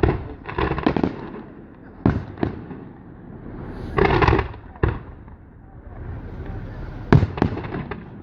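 Fireworks display: fireworks bursting in a string of sharp bangs and crackles, some single, some in quick clusters, the loudest cluster near the end.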